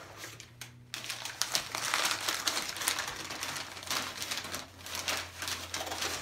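Packing paper crinkling and rustling as it is unwrapped by hand, a dense run of crackles that starts suddenly about a second in.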